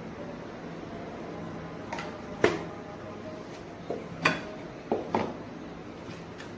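Kitchenware knocking and clinking against dishes, about six sharp knocks, some with a short ring. The loudest comes about two and a half seconds in.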